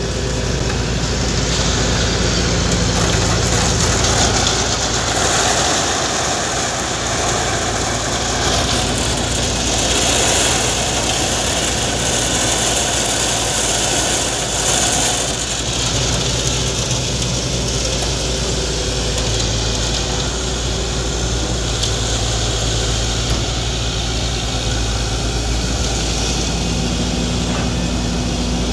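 Diesel engines of a hydraulic excavator and a concrete mixer truck running steadily, a constant low rumble with a broad hiss above it.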